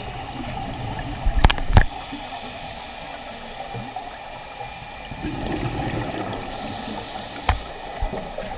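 Underwater sound of a scuba diver on a wreck dive, heard through the camera: a steady rush of water noise, with a swell of gurgling exhaled regulator bubbles partway through. Sharp knocks come twice in quick succession about one and a half seconds in, and once more near the end.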